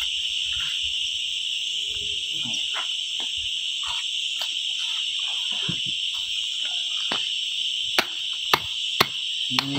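Steady high-pitched chorus of insects throughout, over a machete chopping grilled chicken on cardboard laid on concrete: a few soft knocks, then four sharp chops about half a second apart near the end.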